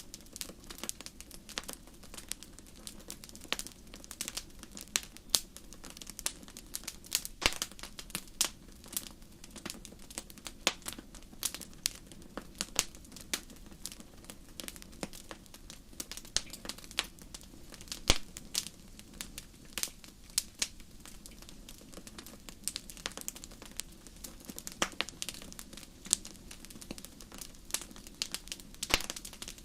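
Fire crackling: irregular sharp pops and snaps, a few louder than the rest, over a steady low background rush.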